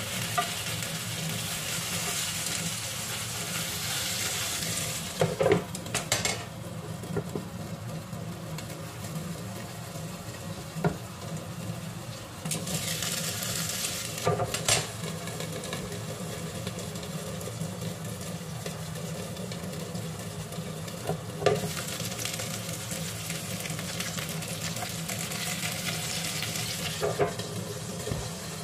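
Pieces of bell pepper, eggplant and fish sizzling in a frying pan, the sizzle swelling and fading. Metal tongs click against the pan a few times, and a glass lid clinks onto the pan about midway. A steady low hum runs underneath.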